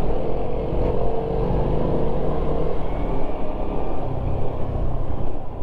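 Honda Wave 110 underbone motorcycle's small single-cylinder four-stroke engine running at a steady road speed, under a low rumble of wind and road noise.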